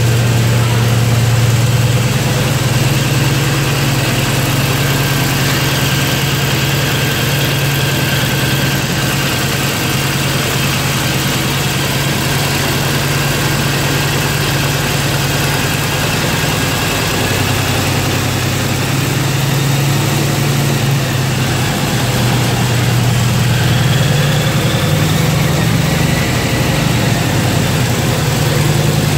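Jacobs R-755 seven-cylinder air-cooled radial aircraft engine idling steadily, its low note shifting slightly a few times in the second half.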